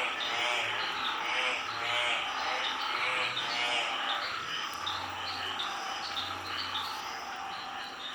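Animal calls, most like frogs croaking, repeating about every second and a half, with high chirps over them; the calls ease off in the second half.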